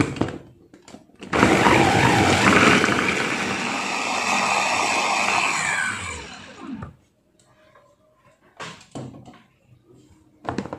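Electric mini chopper running for about five seconds, its blades grinding shallots, garlic, chillies and rhizomes into a spice paste. The motor then winds down with a falling whine. A few light knocks follow near the end.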